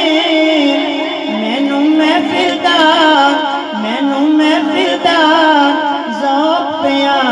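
Male voice singing a Punjabi naat through a microphone and loudspeakers, drawing out long wavering, ornamented notes between lines of the verse, with a steady low held tone beneath.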